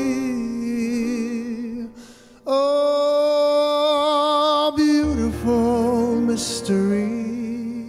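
Male vocal quartet singing a Māori song in close harmony, with vibrato on the held notes. A short break comes about two seconds in, then a long sustained chord, more sung phrases, and a fade near the end.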